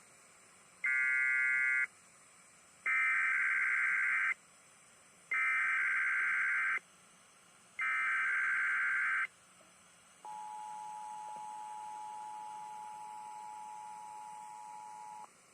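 Emergency Alert System test tones over a radio broadcast: four screeching bursts of SAME digital header data, about a second apart, then the steady two-tone EAS attention signal held for about five seconds before it cuts off.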